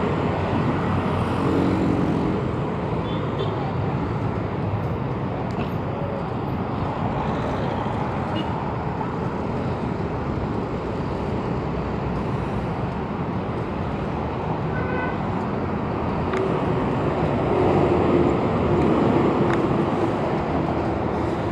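Steady city road traffic heard from a moving bicycle: the constant rush of passing cars and trucks blended with wind noise on the microphone.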